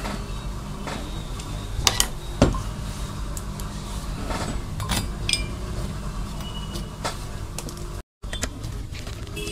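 Metal projector parts (DMD heat sink and optical housing) clinking and knocking against each other and the wooden workbench as they are handled, a few sharp clicks over a steady low hum. The sound drops out for a moment near the end.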